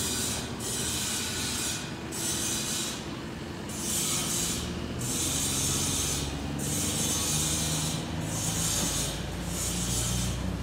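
A boat's inboard Mitsubishi S6S diesel engine running hard as the boat passes close, its pitch rising slowly. Over the engine there is a rushing hiss that swells and drops every second or so.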